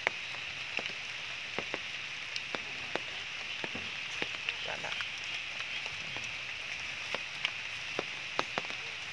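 Steady rain hiss with irregular sharp taps of individual raindrops landing close by.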